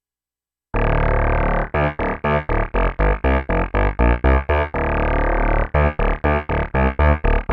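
Sequential Prophet-6 analog synthesizer playing a sequenced FM patch, its oscillator 2 modulating at audio rate through Poly Mod, heard dry with no effects. After a short silence a held chord starts, then breaks into fast staccato notes, about four a second, over a low bass, with a brief held stretch midway.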